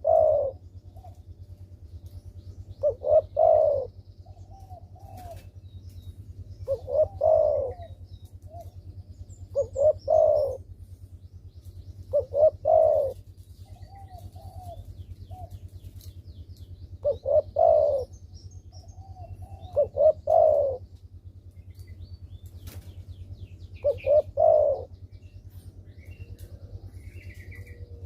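Spotted dove cooing, with eight phrases of two or three short notes ending in a longer coo, one about every three seconds. A steady low hum runs underneath.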